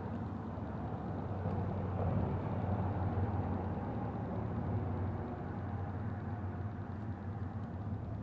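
Transformer soldering gun humming steadily as it heats a soldered wire splice.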